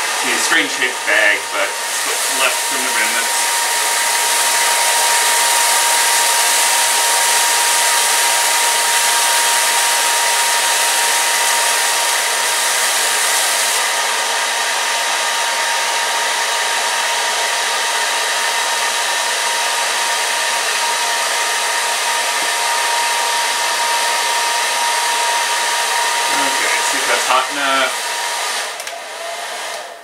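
Handheld hair dryer blowing steadily into a thin plastic bag to heat the air inside, a constant rush with a faint steady whine. The plastic rustles about the start and again near the end, and the dryer cuts off at the very end.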